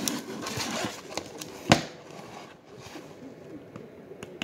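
Small plastic multi-pin wire connector and its leads handled close to the microphone: rustling and light clicks, with one sharp click a little under two seconds in.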